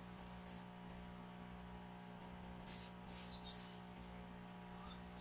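Low, steady electrical mains hum with a few faint, brief rustles of handling.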